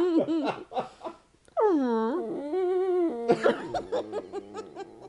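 Dachshund whining in one long cry that falls in pitch and then wobbles rapidly up and down as the dog is shaken, an accordion-like warble. People laughing before and after it.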